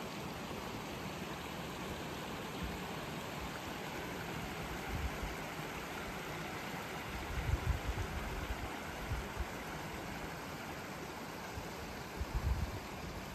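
Shallow brook running over a rocky stony bed, a steady rushing hiss. Wind gusts buffet the microphone with low rumbles about halfway through and again near the end.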